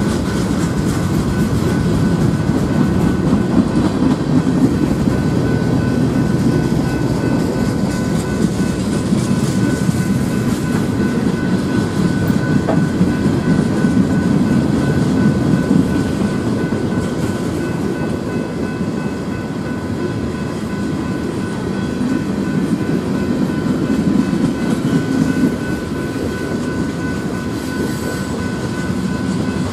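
Freight train of tank cars, lumber-loaded centerbeam flatcars and covered hoppers rolling past close by: a steady rumble of steel wheels on the rails.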